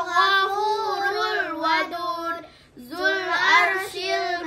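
Two children chanting Quran verses together in Arabic, a melodic recitation with long held notes and a short pause for breath about halfway through.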